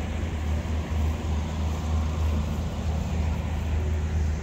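Steady low rumble of city street background, with traffic noise.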